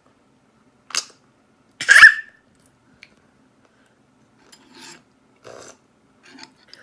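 A toddler's two short, breathy sounds about a second apart, the second louder with a brief falling voiced edge, followed by a few faint short noises.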